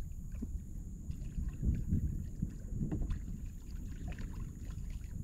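Wind rumbling on the microphone, with light water lapping and small splashes against a kayak's hull on choppy water.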